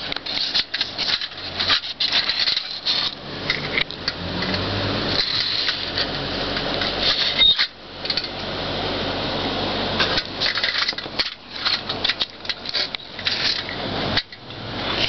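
Handling noise of a small metal toy jeep being turned over in the hand and set on a styrofoam block: irregular clicks, light knocks and rattles, with stretches of rubbing and scraping.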